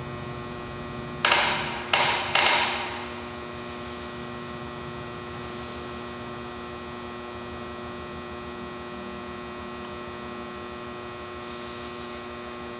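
A steady electrical hum made of several constant tones. About a second in, a man makes three short, sharp breath noises close together after swallowing a sip of whiskey.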